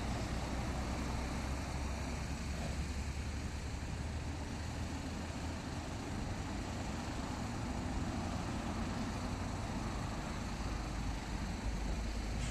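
Road traffic passing on a roundabout: a steady mix of engine and tyre noise from cars and vans, heaviest in the low rumble.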